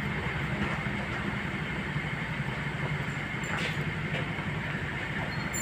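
Automatic car AC refrigerant charging machine running with a steady motor hum during its leak-test, vacuum and gas-charging cycle, with a couple of faint clicks a little past the middle.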